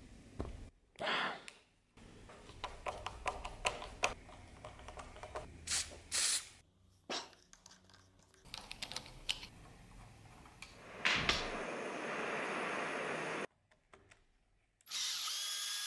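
Steel screws being turned into a vise's jaw plate with a hand screwdriver: a run of small, quick clicks and scrapes of the bit in the screw heads. In the second half a cordless drill-driver runs in two short spells, the last with a pitched motor whine.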